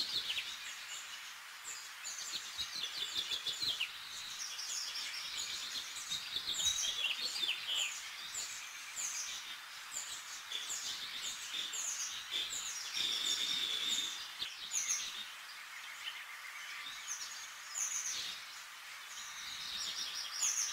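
Small birds chirping continuously, many short high chirps in quick runs, over a steady hiss.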